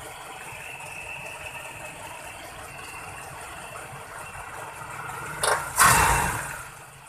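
Toyota Kijang's carburetted four-cylinder engine running steadily with a mechanical rattle, heard up close at the distributor. Near the end a sudden loud burst of noise fades out over about a second.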